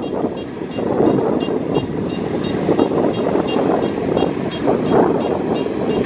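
Kubota DC-105X combine harvester's diesel engine running steadily as the machine crawls on its rubber tracks, with a fast, regular high ticking of about four per second over the engine noise.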